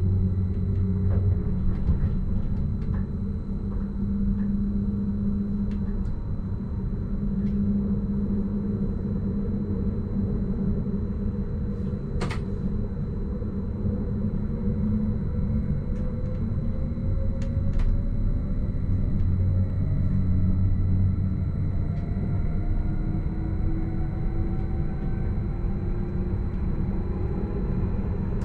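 Stadler RABe 515 'Mutz' electric multiple unit running, heard from the driver's cab: a steady rumble of the wheels on the track with a whine from the traction drive that rises in pitch through the second half. A sharp click about twelve seconds in.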